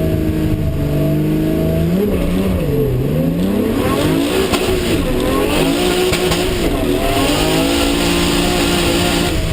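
Turbocharged race car engine running hard. Its pitch dips and climbs back about two to three seconds in, then holds fairly steady with small rises and falls.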